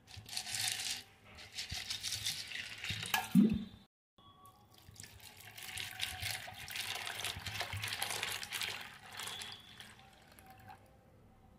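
Water poured from a jug into a steel bowl of dried black chickpeas, splashing over them, in two stretches with a brief silent gap about four seconds in.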